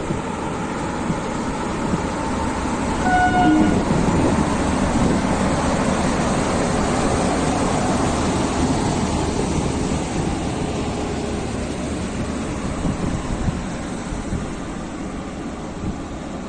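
Indian Railways WAG-9 electric locomotive running past on its own, with a short horn toot about three seconds in. Its running noise is loudest as it passes close and then fades as it moves away.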